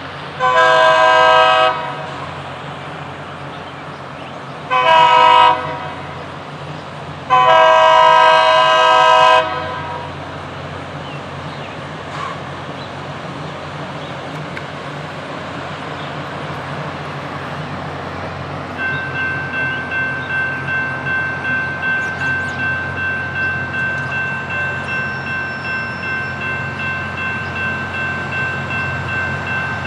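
Rail grinder train's locomotive horn sounding a long, a short and a long blast over the steady rumble of the train's engines. About two-thirds of the way in, a steady mechanical whine with a regular pulse comes up and keeps on as the train works past.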